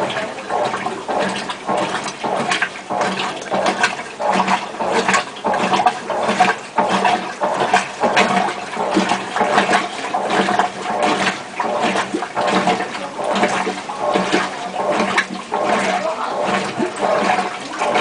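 GE Digital Luxo 12 kg top-load washing machine agitating: water and clothes sloshing in a regular rhythm of surges, with the hum of the motor under each stroke.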